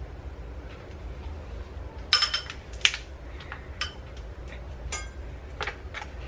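Kitchen utensils and dishes clinking: about five sharp clinks, each ringing briefly, the loudest about two seconds in.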